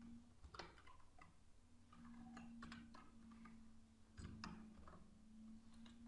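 Faint, scattered computer keyboard keystrokes, a few single clicks and short runs of them, over a faint steady hum.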